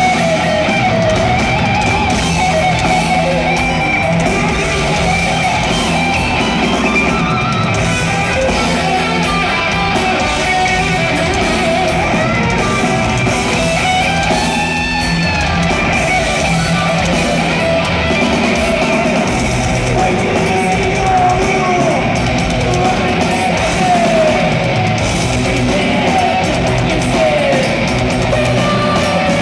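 Live heavy metal band playing an instrumental passage, a distorted lead electric guitar bending and wavering over the rhythm guitar, bass and drums.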